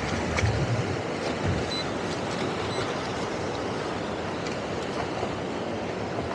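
Steady wind and water noise on open water, with brief low rumbles of wind buffeting the microphone about half a second and again about one and a half seconds in.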